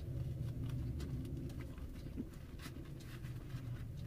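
A person chewing a bite of a soft bread roll with sausages, close to the microphone: soft wet mouth sounds and faint clicks over a steady low hum.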